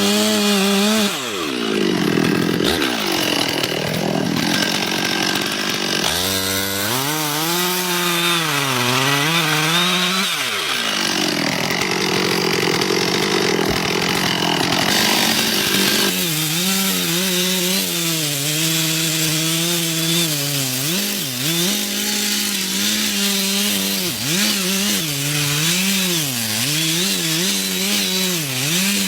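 Chainsaw running and cutting wood, its engine note repeatedly dipping and recovering as the chain loads up in the cut.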